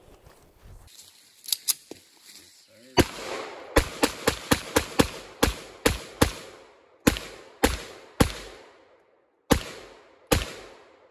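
A string of about fifteen gunshots from a semi-automatic firearm during target shooting. There is a quick run of roughly three to four shots a second, then a handful of slower, spaced shots, each trailing off in a short echo. A few fainter cracks come just before the main string.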